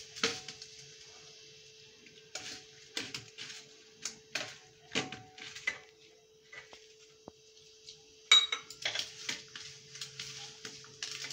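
Hand mixing semolina and grated coconut in a steel plate: scattered light taps and scrapes of fingers and a small steel cup against the plate, with one louder metal knock about eight seconds in. A faint steady hum runs underneath.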